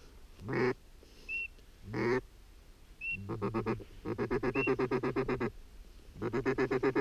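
A flock of ducks calling at close range: two rising calls early, short high whistles typical of drake pintails, then from about three seconds in rapid, fast-pulsed runs of quacking notes that come and go.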